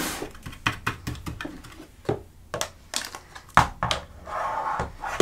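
Irregular clicks and knocks of hard plastic toy playset pieces being handled and pushed into place.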